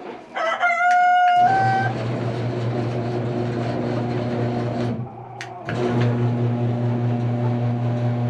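Craftsman garage door opener motor running, driving its extended chain to work the coop door: a steady hum that stops briefly with a click about five seconds in, then starts again. A short pitched sound comes just before the motor starts.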